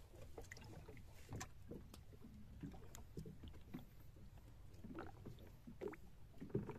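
Faint, steady low rumble of a fishing boat at sea, with scattered light knocks and clicks.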